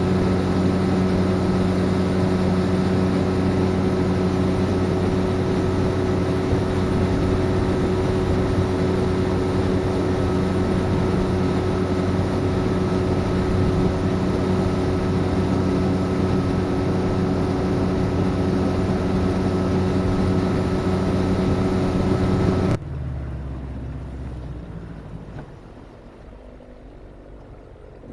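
An engine running steadily at constant speed, a low hum with noise over it. About 23 seconds in it cuts off abruptly, leaving a quieter low rumble that fades.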